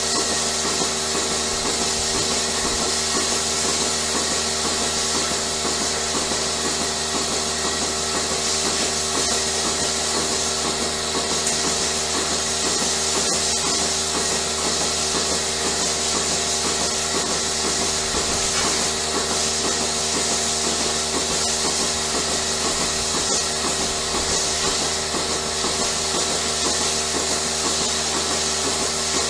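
Machinery running steadily: a constant hum of several tones with a fast, even pulsing.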